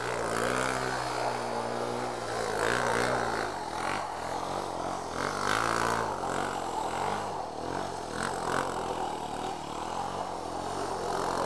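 Suzuki LTZ400 quad's single-cylinder engine revving up and down repeatedly as it spins donuts on wet concrete, over a steady low idling engine note.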